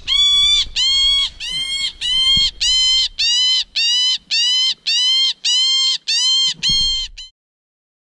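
Blue jay giving a rapid series of harsh, nasal 'jay' alarm calls, about two a second: the bird agitated at being handled. The calls cut off suddenly near the end.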